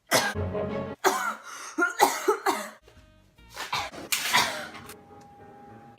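A woman coughing hard in repeated fits from choking on her own spit: a run of harsh coughs over the first three seconds, then another loud burst about four seconds in.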